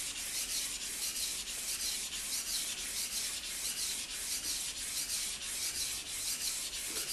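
Steel knife blade stroked back and forth on a wet Japanese whetstone, a steady gritty rubbing in quick, even strokes, grinding through the stone's slurry to raise a burr along the edge.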